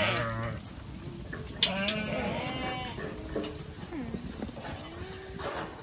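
Zwartbles sheep bleating as the flock crowds through a gateway: several separate calls, some rising and falling in pitch, with a sharp knock about one and a half seconds in.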